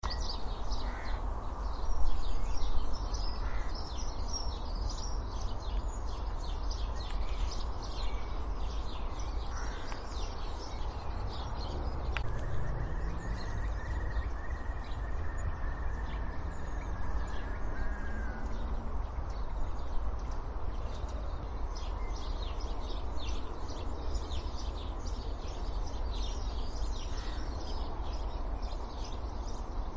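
Garden birdsong: many small birds chirping and twittering throughout, with a curlew's long drawn-out call in the middle, over a steady low background rumble.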